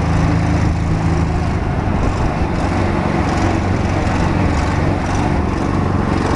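Coot ATV's engine running steadily under way, a low, even engine drone.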